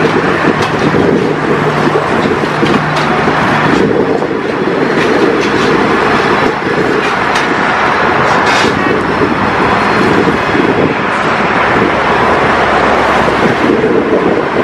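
Track-laying machine working as it lays concrete sleepers: a steady, loud machinery noise with a few light metallic clanks scattered through it.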